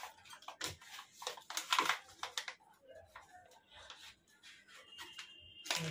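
Paper crinkling and rustling as it is folded around a rolled paratha (egg chicken roll), in a string of short irregular rustles, the loudest about two seconds in.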